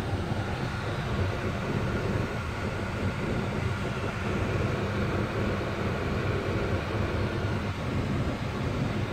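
Jeep Wrangler JK running, heard from inside the cabin: a steady low drone of engine and road noise.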